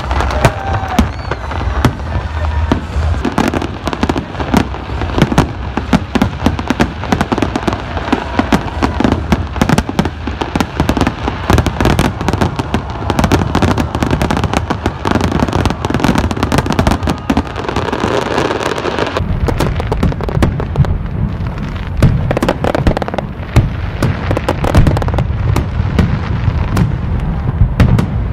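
Fireworks display: a dense, continuous barrage of aerial shells bursting, with many rapid bangs and crackles overlapping. About two-thirds of the way through, the sound turns duller and deeper, with heavier booms and less crackle.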